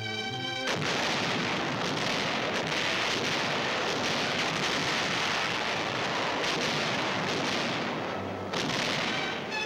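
A dense, steady hiss with faint crackle on an old film soundtrack, after music breaks off under a second in; music comes back at the very end.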